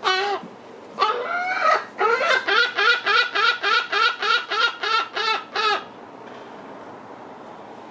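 Lesser black-backed gull giving its long call: one short note, a longer drawn-out note, then a rapid run of about a dozen short, repeated notes that stops about six seconds in.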